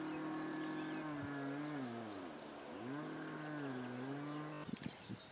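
Insects chirring in a steady high-pitched band, cutting off suddenly near the end. Underneath, a faint low hum dips and rises in pitch a few times, like a distant engine.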